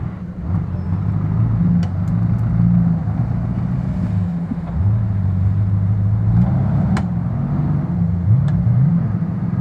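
Lifted Jeep Cherokee XJ's engine revving up and down under load as it crawls over rocks and mud. A few short sharp knocks cut in, the loudest about seven seconds in.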